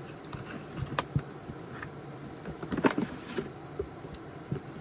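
Cosmetics gift-set packaging being handled and opened: scattered clicks and taps, with the loudest cluster and a short rustle about three seconds in.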